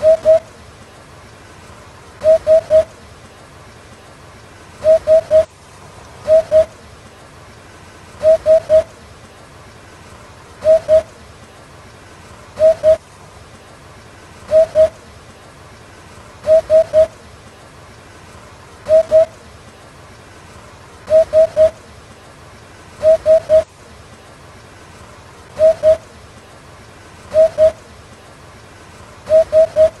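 Eurasian hoopoe calling: groups of two or three short low notes, all at the same pitch, repeated about every two seconds.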